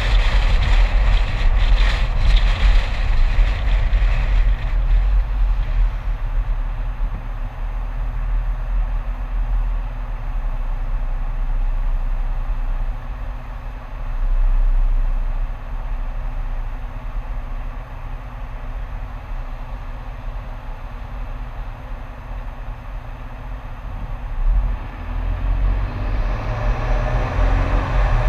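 Car driving on a road: a steady low rumble of wind and road noise that quietens through the middle as the car slows. Near the end it builds again, with the engine note rising as the car speeds up.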